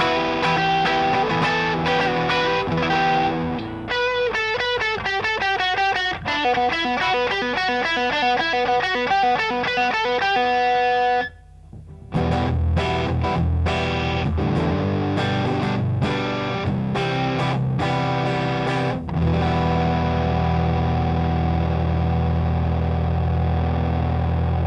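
Electric guitar played through a Grind Customs FX Catch 22 overdrive pedal, a Timmy-style overdrive. Overdriven chords give way about four seconds in to a fast run of single notes. After a brief break near the middle, chords return with a heavier low end.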